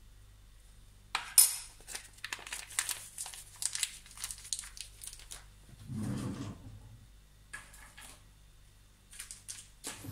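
Metal teaspoon clinking and scraping while measuring baking powder into a mixing bowl: a sharp click, then a quick run of small clicks and rustles for several seconds, a duller knock about six seconds in, and a few more clicks near the end.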